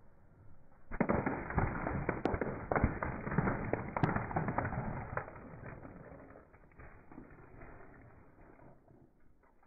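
Eggshells cracking and crunching under a slowly rolling car tyre as two plastic cartons of eggs are crushed on asphalt. A dense run of sharp cracks begins about a second in, then thins and fades away over the last few seconds.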